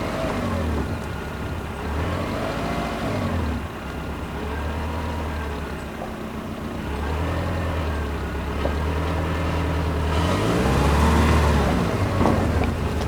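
A motor vehicle driving, its engine running with a low hum whose pitch rises and falls several times as it speeds up and eases off.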